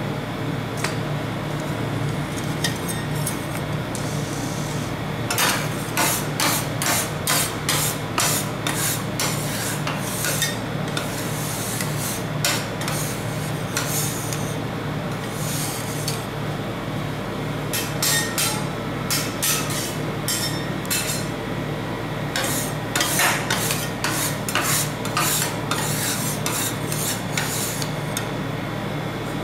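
Two steel spatulas chop and scrape a frozen ice cream mixture on the steel cold plate of a rolled ice cream machine: quick runs of sharp scraping strikes starting about five seconds in, with short pauses between runs. A steady machine hum runs underneath.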